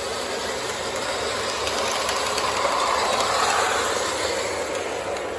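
O gauge electric model trains running on FasTrack O27 track: a steady rush of motor and wheel noise, louder for a second or two near the middle as a locomotive passes close by.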